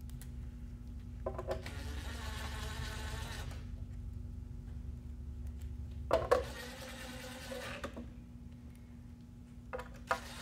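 Cordless drill-driver running in two short runs of about two seconds each, driving screws into the sander's plastic plate until they stop.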